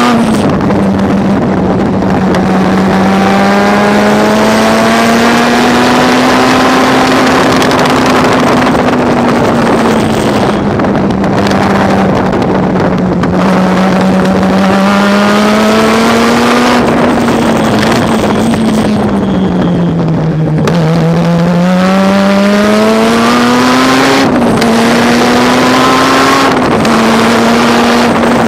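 Mazda RX-7 rotary race engine running hard at high revs, its pitch climbing in repeated rising sweeps under acceleration and dropping briefly as the throttle comes off, twice near the middle.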